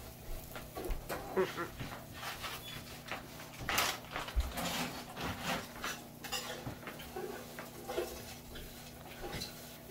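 A plastic bag of vermicelli crinkling, with a metal spoon clicking and scraping in a large aluminium pot: a string of small, irregular clicks and rustles over a steady low hum.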